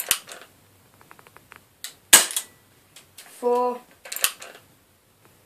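BB gun revolver: a quick run of light clicks as the hammer is drawn back, then a single sharp shot about two seconds in. Another click follows near the end.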